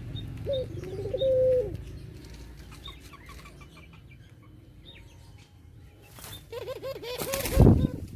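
Puter (Barbary dove) cooing in low, rolling phrases, twice at the start and again near the end, with faint high chirps in between. A brief loud flutter of wings comes near the end.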